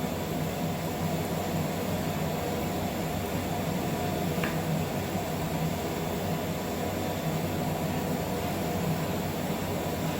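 Steady machine hum and hiss, like fans or ventilation running, with one faint click about four and a half seconds in.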